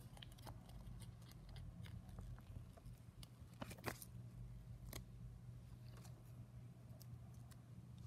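Faint handling of paper and plastic: a sticker being peeled from its clear backing and sticky notes pressed onto a journal page. Scattered small crinkles and taps, the loudest a short crinkle about four seconds in, over a low steady hum.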